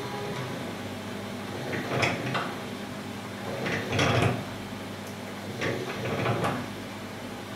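Motor-driven valve lapping tool running steadily with a low hum. The spinning lapping rod is pressed briefly onto the valve cap coated in fine lapping paste several times, each contact a short scraping sound, the loudest about four seconds in.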